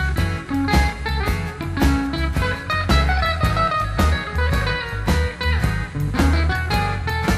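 Background music with a steady beat and no singing in this stretch.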